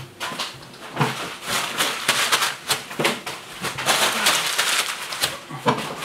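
Irregular taps, knocks and rustling from a person moving about close to the microphone.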